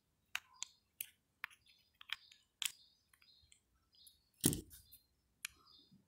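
Small, sharp clicks and light scrapes of a thin metal screwdriver and nails against the plastic latches of a Colormaq washing machine's thermo-actuator housing as it is pried apart, with one louder knock about four and a half seconds in.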